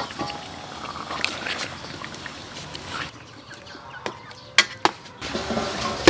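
A metal spoon stirring beef chunks in melted butter in a metal pot, clinking against the pot several times, most sharply about four to five seconds in.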